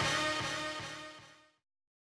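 Background music ending: a held final chord dies away and fades to silence about a second and a half in.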